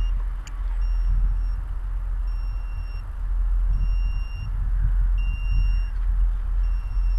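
Wind buffeting the microphone in gusts. A high electronic beep repeats steadily about every second and a half, each beep lasting well under a second. There is a single sharp click about half a second in.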